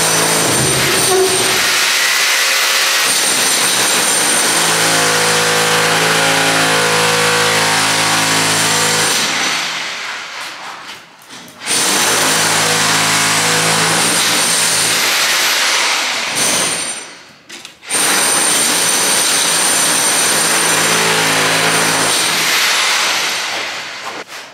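An electric power tool running loudly and steadily off-camera, with a constant low motor tone. It stops briefly twice, about ten and sixteen seconds in, then starts again, and fades out near the end.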